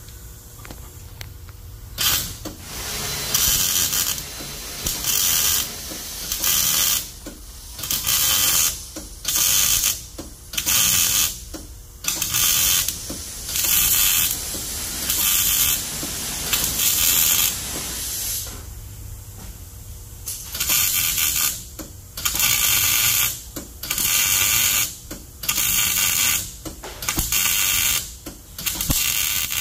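MIG welder laying a weld on a steel frame rail in a series of short crackling bursts, each about a second long with brief pauses and one longer break about two-thirds through. The trigger is being pulsed to keep from putting on too much filler and having it drip while joining thin to thick material.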